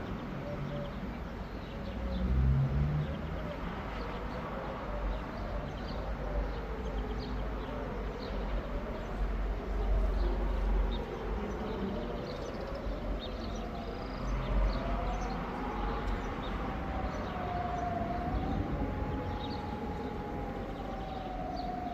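Several civil-defence sirens sounding a test alarm, their wailing tones rising and falling out of step with one another, over a low rumble.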